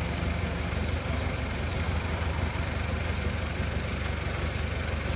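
Steady low rumble of street traffic, with no clear single event.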